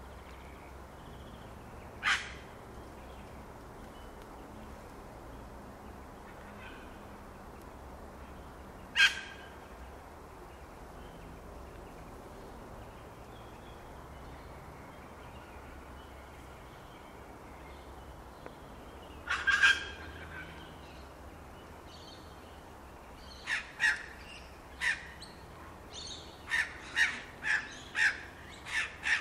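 Birds calling in the background: single short sharp calls about two, nine and nineteen seconds in, then a quick run of calls over the last six seconds, over faint steady background noise.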